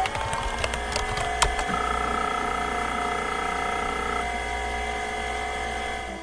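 A steady machine-like whine made of several held tones, after spinning up, with a few sharp clicks in the first second and a half.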